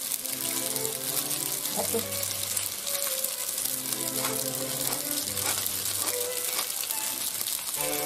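Penne sizzling steadily in oil in a frying pan on the heat, under slow background music of held notes.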